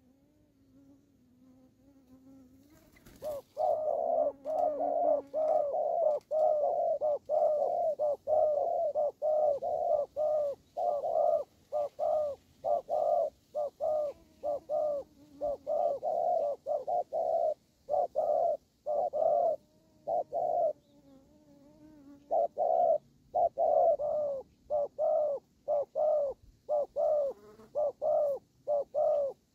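Spotted doves cooing in a long run of short, evenly spaced coos, about two a second, starting about three seconds in with a few brief breaks. This is the territorial display cooing of a caged decoy dove and a wild male facing off at a trap cage.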